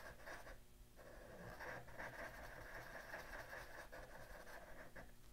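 Black felt-tip marker scribbling on paper in faint, quick strokes as a small circle is shaded in solid.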